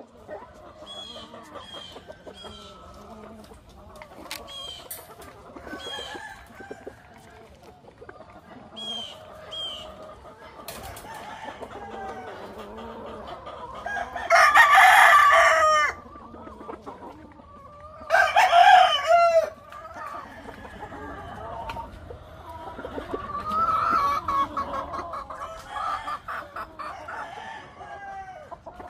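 Chickens clucking steadily, with two loud, long rooster crows, one about 14 seconds in and another about 18 seconds in.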